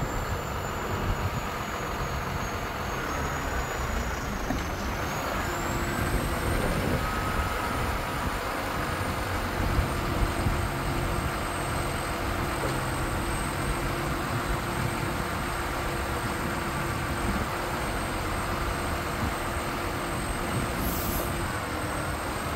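Iveco Stralis truck's six-cylinder diesel engine running steadily while its hydraulic loader crane is worked. A steady hum comes in about five seconds in and stops shortly before the end.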